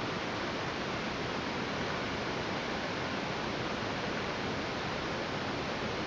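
Steady, even static hiss of a blank analogue video signal, the noise that goes with a snow picture.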